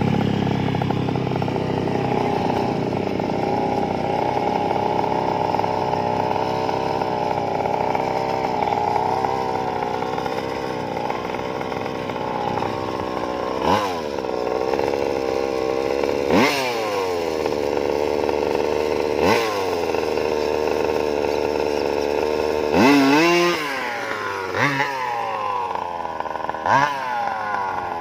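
32cc two-stroke petrol engine of a large-scale RC buggy running at a steady idle, then blipped up in revs about half a dozen times in the second half, each rev falling back to idle.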